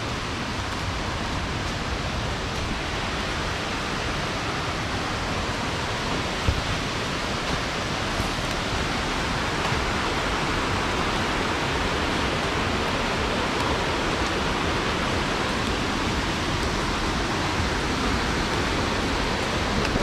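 Steady rush of a waterfall's falling water, an even hiss of noise that grows slightly louder in the second half, with one brief knock about six and a half seconds in.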